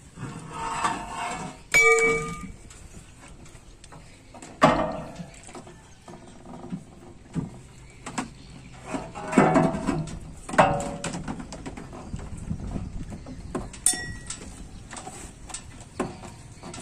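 Steel rudder-heel bracket (giò gà) clanking and knocking against the propeller shaft tube and timbers as it is worked into place under a wooden boat's hull. The loudest clank, about two seconds in, rings briefly; a second sharp knock follows a few seconds later.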